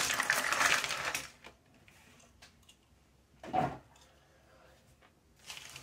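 Cardboard jigsaw puzzle pieces dumped out of the box onto a table: a dense clattering rattle that stops about a second in. A few faint ticks follow, and a brief voice sound comes midway.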